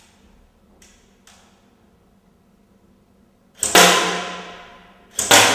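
Type 89 toy rifle firing two single shots about one and a half seconds apart, each a sharp crack with a tail ringing off for about a second, after two faint clicks about a second in.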